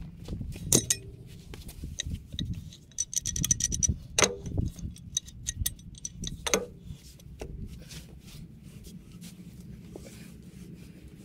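Metal hand tools clinking and knocking on the bolts of a homemade brass poly-pipe squeezer as a ratchet wrench and a pipe wrench are handled. There are sharp metal knocks about a second in, around four seconds in and past halfway, with a quick run of small clicks between the first two.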